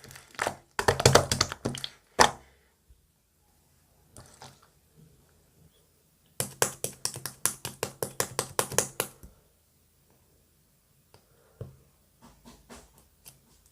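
Marbled slime being pressed and squeezed by hand, giving runs of sharp sticky clicks and pops about four a second, in two bursts, with fainter clicks near the end.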